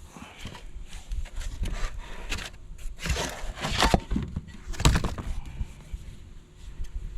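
Hands handling the new boat propeller and its packaging: irregular rustling with a few sharp knocks, the loudest about five seconds in.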